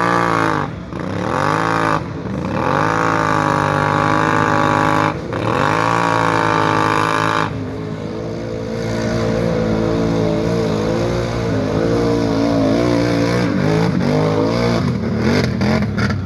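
ATV engine revving hard, the throttle backed off briefly about a second in, at two seconds and near five seconds. After about seven and a half seconds it drops to lower, steadier revs with smaller rises and falls.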